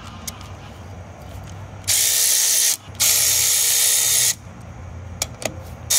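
A cordless power driver run in two bursts, about a second each with a short gap between, backing out bolts on a pump, with a few small clicks near the end.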